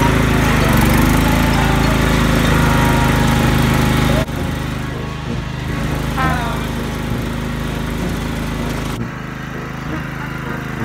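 Riding lawn mower's small engine running steadily. The sound changes abruptly twice, about four and nine seconds in.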